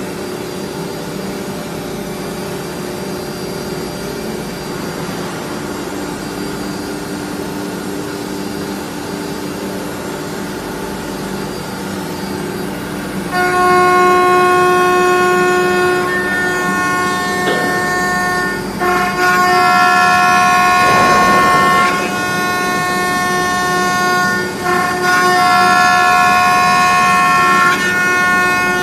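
CNC router running: a steady machine hum, then about halfway through the spindle's high whine comes in much louder as a held, many-pitched tone, broken by a few brief dips near the end.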